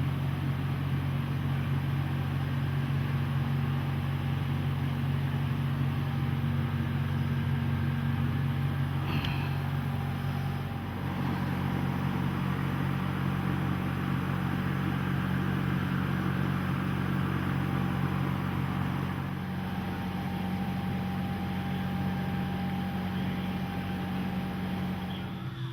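Steady low mechanical hum with a few fixed pitches, stepping slightly in pitch about eleven seconds in; a single short click about nine seconds in.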